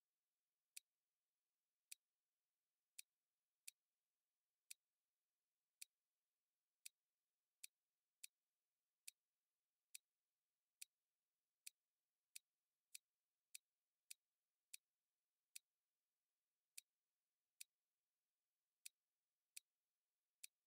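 Computer mouse clicking: about two dozen single sharp clicks at uneven intervals of roughly half a second to a second.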